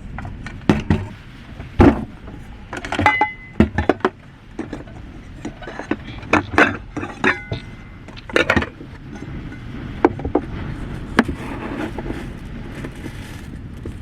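A string of irregular knocks, clicks and light metallic clinks, as of objects being handled and set down, over a steady low rumble.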